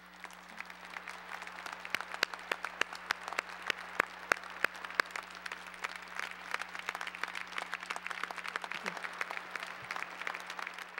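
Large audience applauding, a dense mass of hand claps that swells over the first couple of seconds and keeps going.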